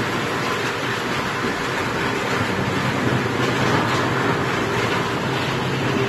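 Electric-motor-driven drum wood chipper running: a loud, steady mechanical noise with a low hum under it.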